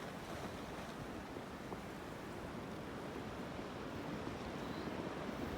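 Steady wind blowing across the microphone: a continuous rushing noise with no distinct events.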